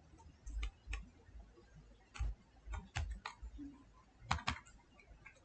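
Irregular clicks and taps from a computer keyboard and mouse, about a dozen spread unevenly, some with a dull thud of the desk beneath.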